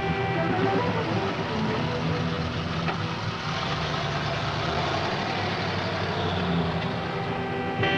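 Car engine running steadily, a low even rumble.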